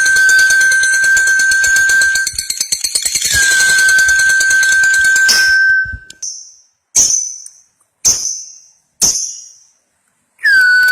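Lovebird giving its long 'ngekek' chatter, a fast run of shrill notes held on one steady pitch, twice for about two and a half seconds each. Then four short, sharp, high calls about a second apart, with the chatter starting again at the very end.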